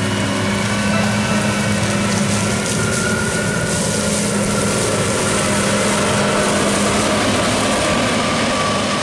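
New Holland CX5080 combine harvester running under load while harvesting grain maize: a steady engine drone with the whir of its threshing machinery and maize header, at an even level throughout.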